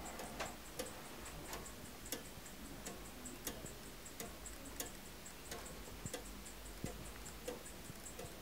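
Gilt brass scissor-escapement fusee skeleton clock ticking steadily, with evenly spaced sharp ticks.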